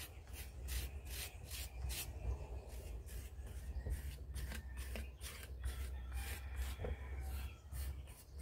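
A hand tool scraping across the surface of a clay bowl in quick repeated strokes, about three a second, taking off the excess slip so that the inlaid mishima lines show through.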